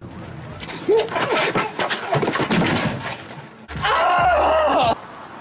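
A scuffle: cries and grunts over a rapid run of knocks and blows, then a loud, high, wavering scream for about a second near the end.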